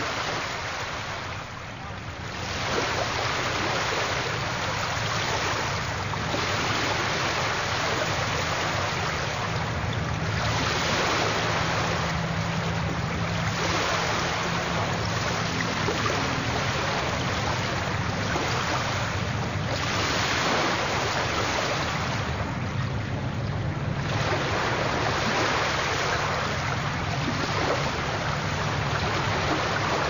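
Surf on a rough, stormy sea: waves breaking and washing up a sandy beach in a continuous rush that swells and briefly eases every few seconds.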